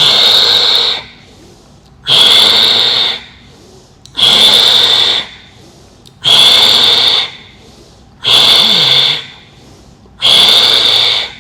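A woman's forceful exhalations in yogic lion breathing, tongue stretched out, each a harsh throat sound as if vomiting the air out. Six loud breaths about a second long, one every two seconds, with quiet gaps between.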